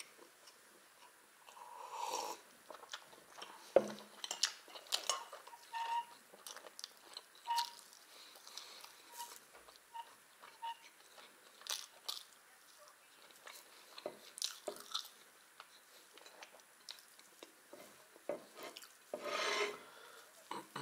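Close-up eating sounds: a person chewing and swallowing soft pancakes, with wet lip smacks and mouth clicks. A sharp tap comes about four seconds in, and a longer breathy rush near the end.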